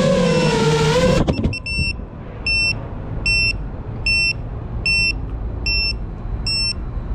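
FPV drone's motors and propellers whining with a wavering pitch, cutting out abruptly just over a second in with a few sharp clicks as the drone comes down on the asphalt. Then a string of about seven evenly spaced high electronic beeps, a little under a second apart, over a low steady rumble.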